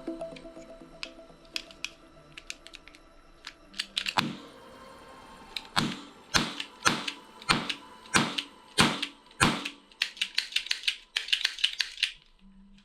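A series of sharp clicks and knocks: scattered clicks at first, then about seven strong knocks a little over half a second apart, and a quick run of fast, high clicks near the end.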